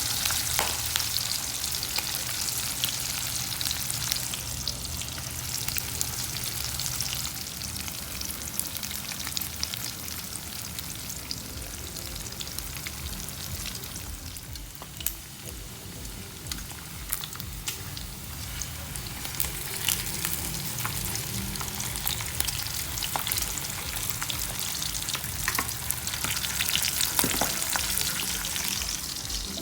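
Breaded pork chops frying in hot oil: a steady sizzle with many small crackling pops.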